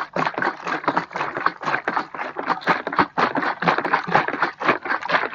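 Bottle of Slime tube sealant being shaken hard to mix the sealant, the liquid sloshing and rattling inside in quick, even strokes, about six a second.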